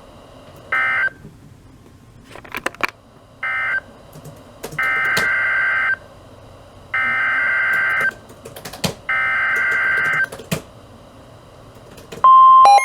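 Weather radio SAME data tones: two short warbling data bursts, then three longer bursts of about a second each, the coded header announcing a new warning. Near the end the steady 1050 Hz weather radio warning alarm tone starts.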